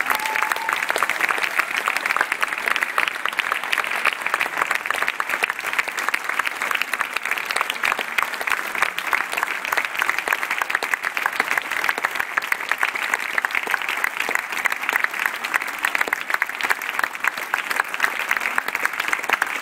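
Audience applauding steadily, many hands clapping. The last held note of the tango music ends about a second in.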